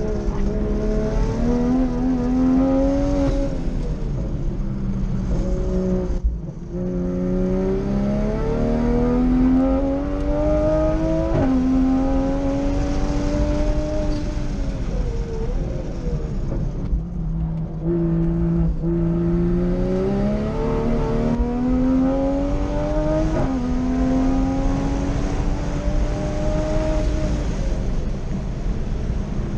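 Toyota GR Supra (A90) time-attack car's engine heard from inside the cockpit on a flying lap. It pulls hard with its pitch climbing, jumps abruptly at gear changes, and dips briefly a couple of times as the driver lifts and brakes for corners.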